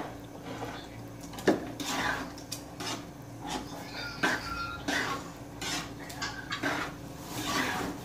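Cooking utensil scraping and clinking against a wok as a thick tomato spaghetti sauce is stirred, with a sharp knock about one and a half seconds in and then short strokes about once or twice a second.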